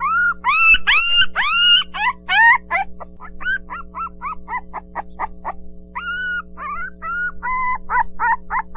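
Puppies yipping and whining in quick, high-pitched calls, one after another, over a steady low hum. The calls are loud at first, grow softer and shorter about three seconds in, and turn into longer, steadier whines near the end.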